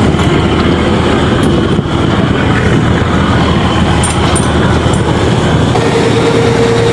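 Chao Phraya express boat's engine running loud and steady under heavy mechanical and water noise, with a steady higher tone joining about six seconds in.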